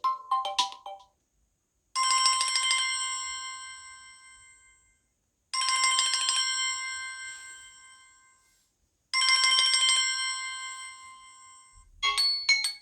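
Samsung Galaxy A71 ringtones playing. A melodic ringtone ends, then a bell-like ringtone rings three times, about three and a half seconds apart, each ring a fast trill that fades away slowly. Near the end another ringtone with quick notes begins.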